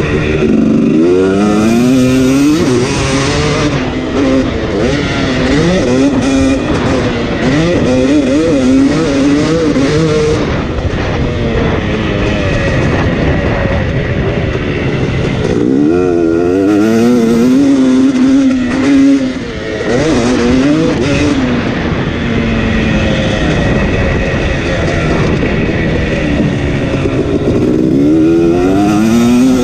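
KTM 250 SX two-stroke motocross engine heard from the rider's seat, revving hard up and down as it is ridden around the track, the pitch repeatedly climbing and dropping through throttle and gear changes, with brief dips near the middle and near the end.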